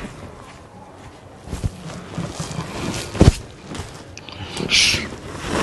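Rustling and soft knocks of a person shifting on a leather sofa, the loudest knock about three seconds in, followed by a short hiss near the end.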